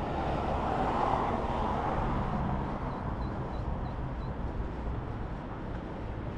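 Urban traffic: a passing vehicle swells about a second in and fades away over a steady low rumble, with a few faint high chirps around the middle.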